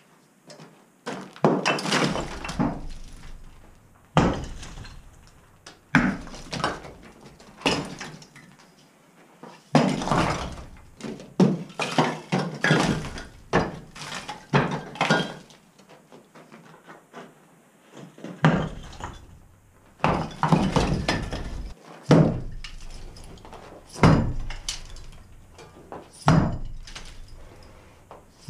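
Sledgehammer blows smashing a plastered brick fireplace surround, each strike followed by broken brick and plaster clattering down onto the rubble below. The blows come one every second or two.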